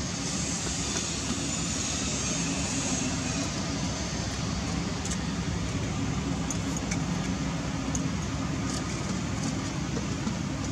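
Steady background noise with a low, even drone underneath and a few faint clicks.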